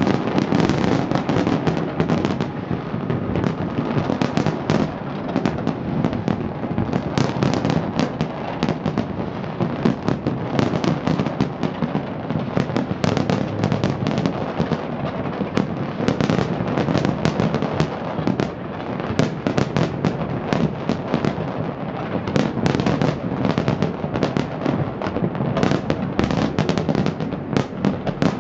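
A dense fireworks barrage: many shells bursting in quick succession, the bangs overlapping without a pause.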